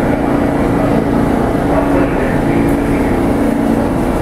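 Steady drone of a New York City subway train standing in the station, with a steady low hum from its running equipment.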